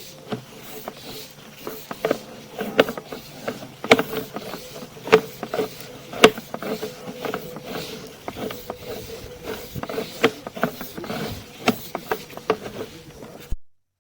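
Sewer inspection camera and its push cable being worked back through the sewer line: irregular sharp clicks and knocks, a few every second, over a faint steady hum. The sound cuts off abruptly near the end.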